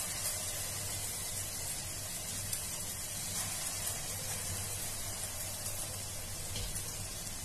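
Hot oil sizzling steadily in a kadai as balls of ground split-pea (matar dal) batter fry in it, with fine crackling.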